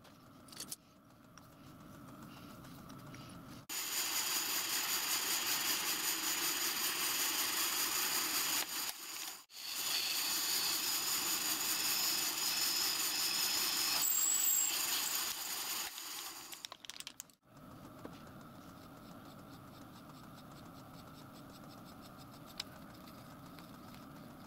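Drill press motor humming, joined about four seconds in by the loud hiss of a compressed-air mist coolant spray blowing onto the drill as it cuts. The hiss breaks off briefly about halfway, then stops a few seconds before the end, leaving the motor hum.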